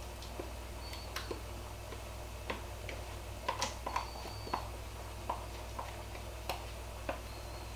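Spatula scraping and tapping sour cream out of a plastic bowl into a mixing bowl: scattered, irregular soft clicks and taps.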